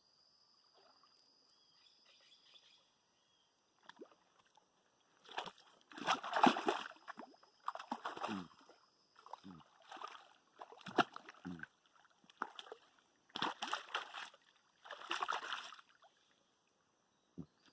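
Water splashing in a series of irregular loud bursts, some with short low sounds that drop in pitch.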